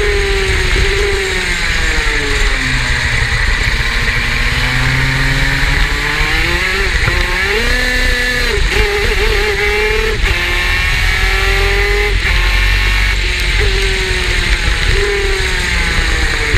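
Superkart's two-stroke engine revving up and down as the kart laps, its pitch climbing and dropping again and again.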